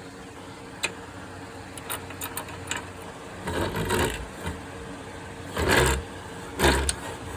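Drill press running with its freshly rebuilt chuck spinning, a steady motor hum, while it is checked to see that it spins straight. A few louder knocks or rattles come about halfway through and near the end.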